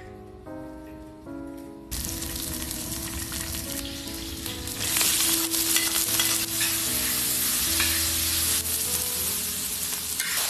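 Hot oil sizzling in an iron wok, starting suddenly about two seconds in. A few seconds later chopped fresh green and red chillies go into the oil and the frying grows louder as they are stirred with a spatula. Background music plays underneath.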